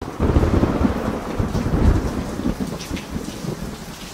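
Rolling thunder over steady rain, the rumble loudest in the first two seconds and slowly dying away.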